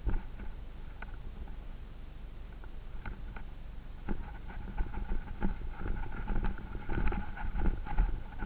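Off-road vehicle driving over rough ground: a low rumble with scattered knocks and rattles, and a steady whine that grows stronger from about halfway through.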